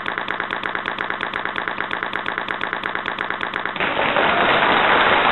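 A fast, even rattle of about eight beats a second; about four seconds in it gives way to a steady hiss like static.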